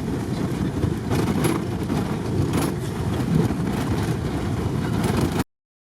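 Minibus engine and road rumble heard from inside the cabin at speed, with a few short rattles. It cuts off abruptly near the end.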